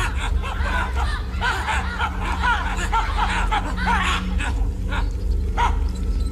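A rapid run of short, rising-and-falling, laugh-like chattering calls, several a second, over a steady low rumble.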